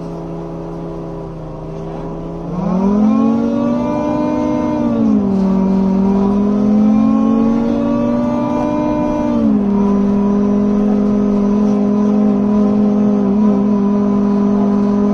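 BMC Procity city bus (Cummins ISB6.7 diesel) heard from inside the cabin, its engine-driven cooling fans giving a loud humming drone. The hum jumps up in pitch about two and a half seconds in as the bus pulls away, drops back twice, and then holds steady.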